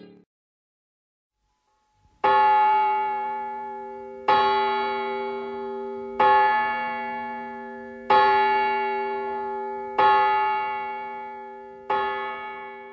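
A single bell tolling the same note six times, about two seconds apart, each strike ringing and fading slowly before the next.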